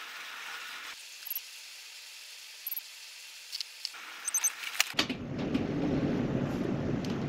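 Cabin ambience of a stationary train: for the first five seconds a faint hiss with a few short high clicks and beeps, then a sudden change to a steady low rumble of the train's running equipment.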